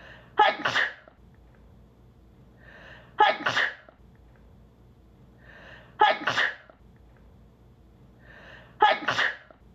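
A woman sneezing four times, evenly about every three seconds. Each sneeze is a quiet, quick in-breath followed by a loud "achoo", the same sneeze repeated in an edited loop.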